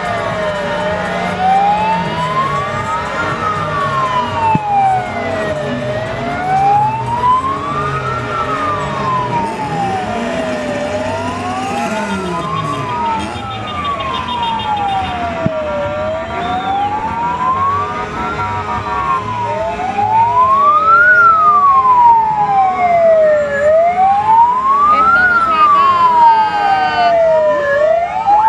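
Police sirens wailing in slow up-and-down sweeps of about two to three seconds each, two or more sirens overlapping out of step. They get louder about two-thirds of the way through.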